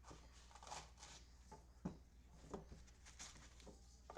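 Faint rustling and a few light taps of trading cards being handled and slid about, the sharpest tap about two seconds in.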